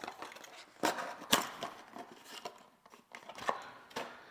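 Sharp clicks and light scraping of a hand tool working a solid copper wire, bending its stripped end into a hook loop for a switch screw terminal. Two clicks about half a second apart near the first second are the loudest, with a few softer ones later.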